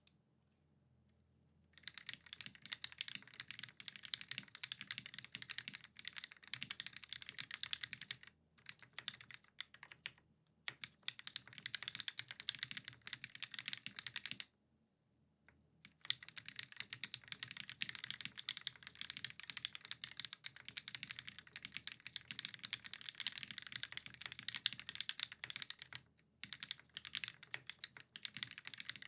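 Typing on a Sabre mechanical keyboard with lubed vintage Cherry MX Black linear switches on an aluminium plate and GMK keycaps. Rapid continuous key clacks start about two seconds in, broken by a few short pauses and a longer one of over a second about halfway through.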